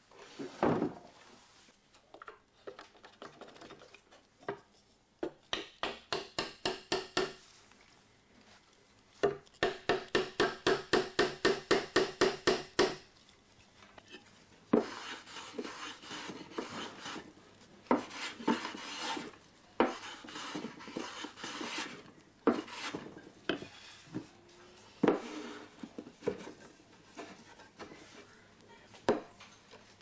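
A hammer tapping wedges in to lock the central post into a wooden shrine roof, in two runs of quick, ringing strikes about four to five a second. Then the wooden parts scrape and rub as the assembly is handled, with scattered single knocks.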